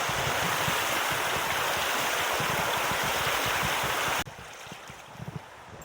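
Rushing mountain stream, a loud steady hiss of water, that cuts off abruptly about four seconds in. A much quieter stretch follows, with a few soft low knocks.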